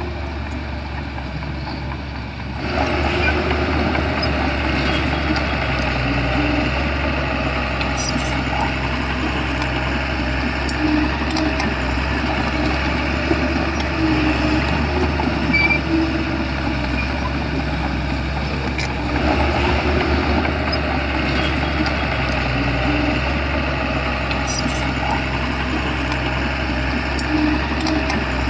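Shantui bulldozer's diesel engine running steadily, getting louder about two and a half seconds in, with a few sharp metallic knocks.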